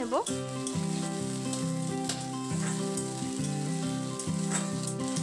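Tomato wedges and spices sizzling in hot mustard oil in a metal wok, with a few sharp knocks of the spatula as it stirs. Soft background music with held chords plays over it.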